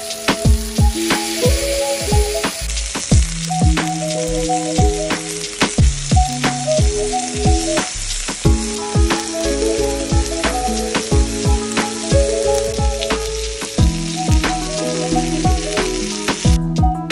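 Marinated chicken tikka searing and sizzling on a ridged cast-iron grill pan, a steady hiss of spitting fat, over background music with a plucked beat. The sizzle cuts off near the end.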